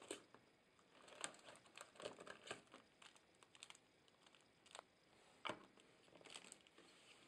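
Faint crinkling of a phone's clear plastic wrap and handling of its cardboard box, with scattered small clicks and one sharper tap about five and a half seconds in.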